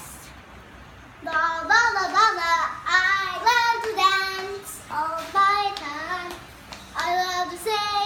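A young girl singing in a high, bright voice in short phrases, beginning about a second in.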